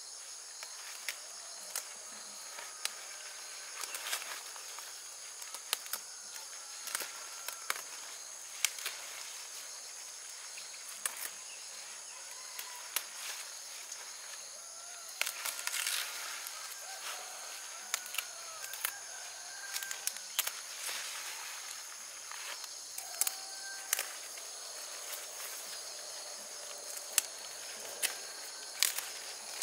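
Leafy vegetable plants being picked by hand: a scattered run of sharp snaps and rustles as stems break and leaves are handled, over a steady high insect drone with a few short bird chirps.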